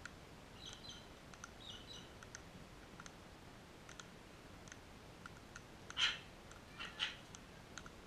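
Sulphur-crested cockatoos foraging on a lawn: scattered small clicks of beaks pecking and cracking at the ground, a little soft chirping about a second in, and two short squawks at about six and seven seconds in.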